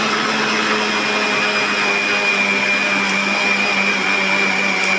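Electric mixer grinder motor running at full speed with sugar in its jar, grinding it to a coarse powder: a loud, steady whine over an even rush of noise.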